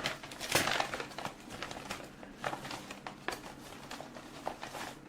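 Rustling and crinkling of packaging being handled, with scattered small clicks and taps, as items are rummaged through in a box.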